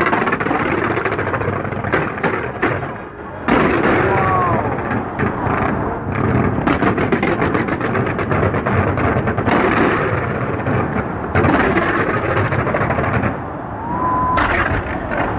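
Fireworks going off in dense, rapid volleys of bangs and crackles, with brief lulls about three seconds in and near the end.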